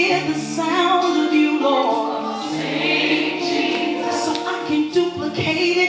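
Choir singing a gospel worship song, the voices holding long notes.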